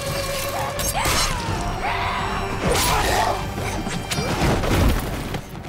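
Film fight-scene soundtrack: music score under a series of hard body blows and crashes, with the loudest hit near the end.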